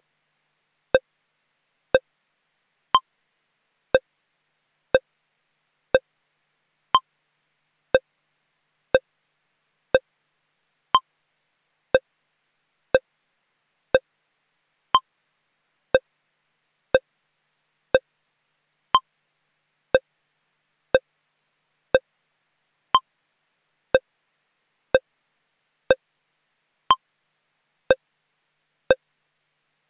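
Electronic beep tone from a broadcast holding slate: short pips exactly once a second with silence between, three at a lower pitch followed by one about an octave higher, repeating in a steady cycle.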